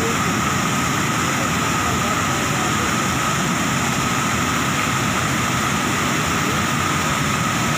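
Steady rush of white water pouring and churning over a weir.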